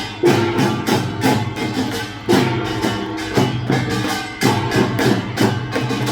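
Korean drum troupe playing percussion music, with drum strikes on a steady beat over sustained pitched tones.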